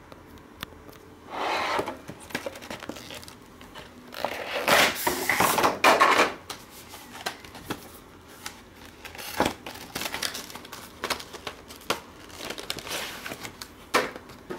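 Unboxing rustle of plastic packaging and a cardboard box being slid apart and handled: irregular crinkling and scraping with scattered light clicks, loudest for a couple of seconds about four seconds in.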